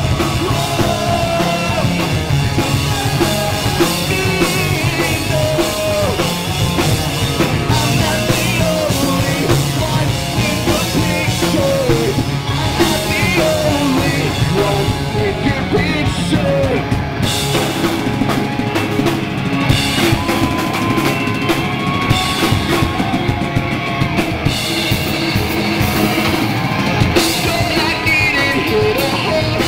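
Live rock band playing loud on stage: electric guitars, bass guitar and a drum kit driving the beat.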